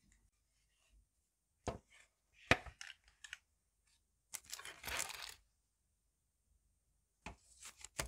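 Several sharp knocks as a metal baking tray is set down on a hard surface, the second loudest, then about a second of rustling baking paper, and a few light taps near the end as a baked cookie is lifted off the sheet.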